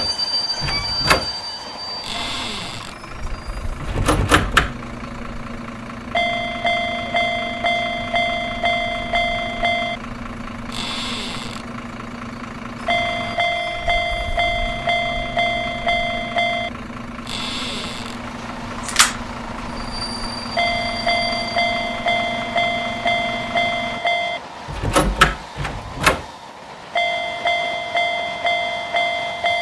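Railroad crossing sound effects: the crossing's warning bell rings in stretches of a few seconds, about two strikes a second, over the rumble of a passing train. A few loud clacks, like wheels over rail joints, stand out here and there.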